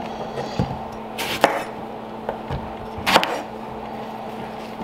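Chef's knife chopping eggplant into chunks on a wooden cutting board: a few separate, irregularly spaced cuts, each ending in a knock of the blade on the board.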